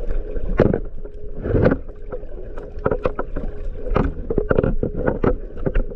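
Muffled underwater sound through a camera's waterproof housing: a low rumble of moving water with irregular clicks and knocks, several a second at times.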